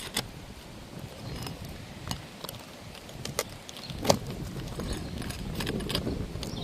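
Metal roof snake working under brittle asphalt shingles: scattered clicks and scrapes of the tool on nails and grit, with a sharper knock about four seconds in. The shingles tear instead of letting the nails go.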